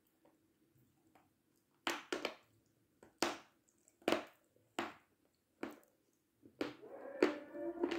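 A lump of Severskiy chalk being bitten and chewed, giving sharp crisp crunches, about eight in all, roughly one a second from about two seconds in.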